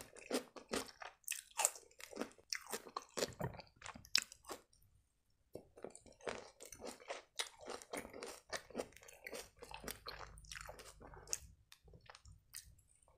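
Close-up crunchy chewing of a fresh cucumber slice: many quick, irregular wet crunches, with a short pause about five seconds in.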